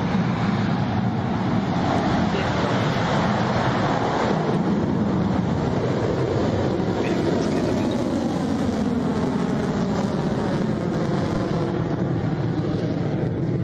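Electron rocket's first stage, its nine Rutherford engines firing at full thrust during liftoff and the climb off the pad: a loud, steady, unbroken roar.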